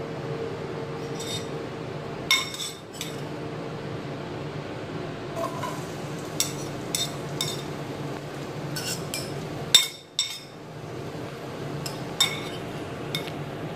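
Kitchen utensils and dishes clinking: a dozen or so short, sharp clinks and taps at uneven intervals, the loudest about ten seconds in, over a steady low hum.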